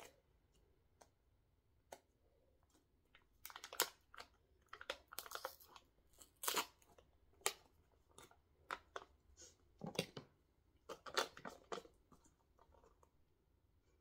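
Plastic food pouch crinkling and being torn at as it is worked open, in a run of irregular rustles and short rips that starts a few seconds in and stops near the end.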